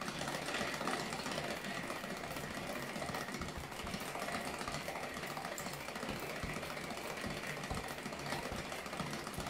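Tupperware Speedy Chef 2 hand-cranked whipper being turned steadily on its second speed, a continuous fast mechanical whirr as its gears and whisks churn liquid cream into whipped cream.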